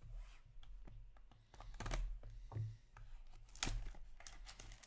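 Cardboard trading-card pack box being handled and opened: light scrapes and scattered clicks, with two sharper clicks about two seconds and nearly four seconds in.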